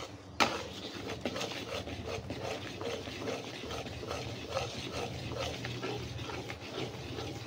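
Metal spatula stirring and scraping a thick sauce around a metal wok in repeated strokes, with a sharp knock against the pan about half a second in.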